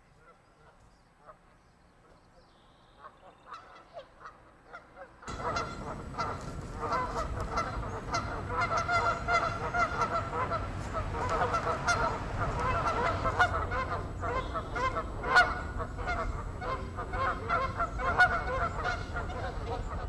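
Canada geese honking, many overlapping calls in a loose chorus. A few faint calls at first, then the chorus comes in suddenly and loud about five seconds in and keeps going.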